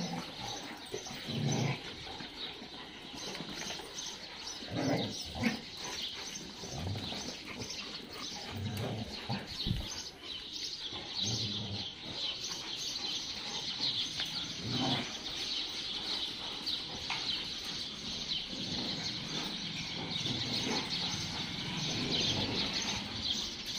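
Dogs giving a few short barks here and there, over steady chirping of many small birds.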